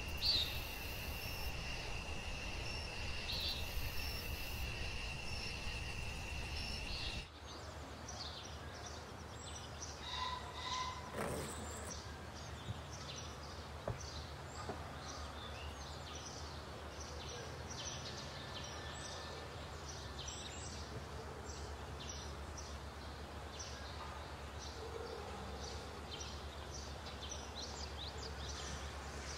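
Outdoor ambience with scattered short, high bird chirps. A steady high whine and low hum stop abruptly about seven seconds in.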